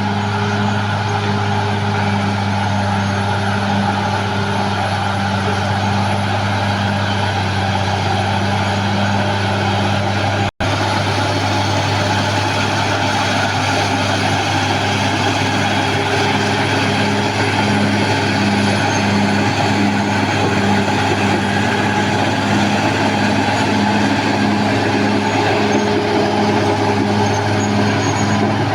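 Caterpillar D6R XL bulldozer's diesel engine running steadily under working load, a deep hum with a regular pulsing that sets in during the second half. The sound cuts out for an instant about ten seconds in.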